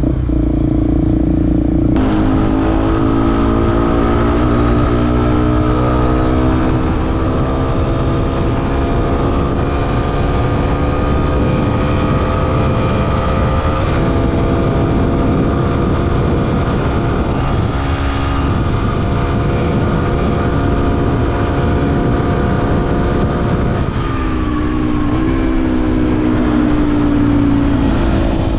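Motorcycle engine pulling under throttle while riding. Its pitch jumps up about two seconds in, climbs slowly, then holds steady, and eases off and drops near the end. A heavy low rumble runs underneath.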